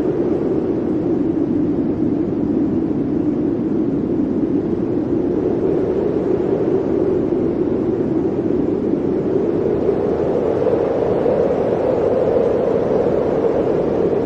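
Blizzard wind blowing steadily, a deep rushing noise that rises a little in pitch about ten seconds in.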